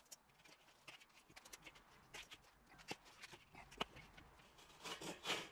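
Faint, irregular clicks and knocks of insulating fire bricks being handled and set into a steel drum, with a few louder knocks near the end.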